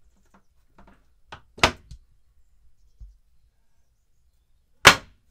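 Wooden cabin locker doors on a yacht being shut by hand, each closing with a sharp knock as its latch catches: twice, about three seconds apart, with a few light clicks just before the first.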